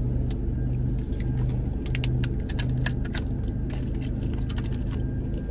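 Rice crackers being snapped and crunched, a scatter of sharp crackles, over the car's steady low hum.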